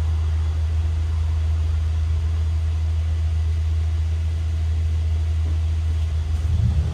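Double-decker bus's engine and drivetrain running with a steady low drone, heard from inside on the upper deck. About six seconds in the drone starts to waver as a higher sound comes in.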